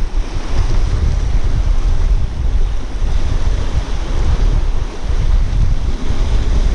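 Wind buffeting the microphone over the steady wash of sea surf, a loud rumbling noise that rises and falls.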